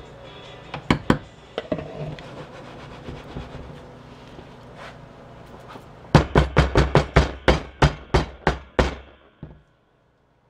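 Silicone-lined soap loaf mold in a wire basket banged down on a hard surface: a few single knocks, then a quick run of about a dozen hard knocks, about four a second, settling the freshly poured soap batter and working out air bubbles.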